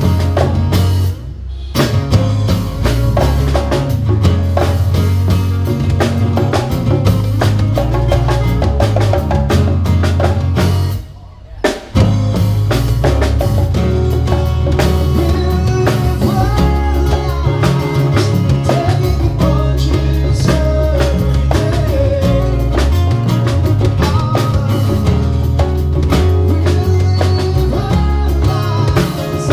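Live acoustic band: acoustic guitars strummed over congas, with a man singing lead in the later part. The band stops short twice, about a second in and around eleven seconds in.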